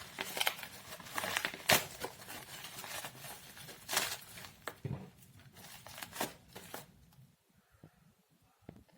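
Plastic packaging crinkling and crackling as a newly delivered RAM module is unwrapped by hand. The crackles are irregular and die away about seven seconds in, leaving a few faint ticks.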